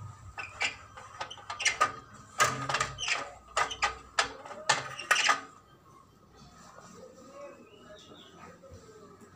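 A quick run of irregular knocks, clicks and rustles close to the microphone for about five seconds, the sound of the phone being handled and set in place. After that it goes much quieter.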